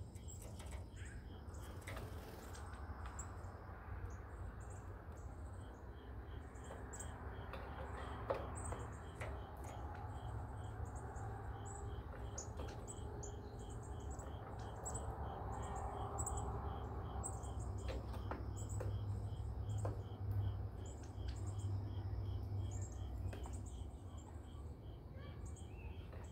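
Small birds chirping, with short high notes scattered throughout, over an insect chirp that repeats in an even pulse. A steady low rumble runs underneath.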